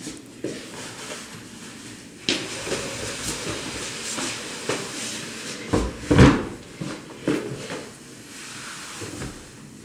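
Rustling and scattered knocks, with a heavy thump about six seconds in.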